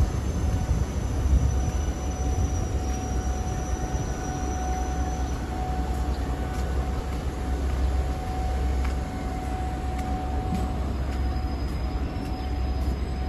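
Electric air blower running steadily to keep the inflatable tent up: a constant low rumble with a thin steady whine over it.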